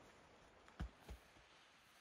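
Two dull thuds about a third of a second apart: a gloved hand patting down loose soil.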